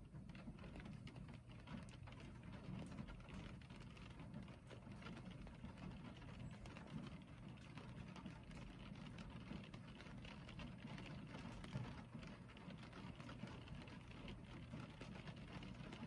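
Rain falling steadily on a car, heard from inside the cabin: a soft even hiss of rain on the roof and glass, flecked with many small drop ticks.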